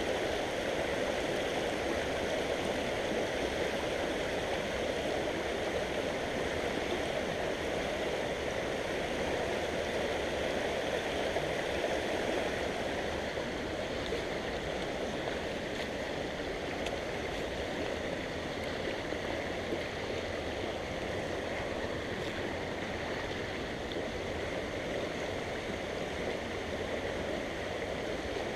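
Shallow creek water running over riffles: a steady rush.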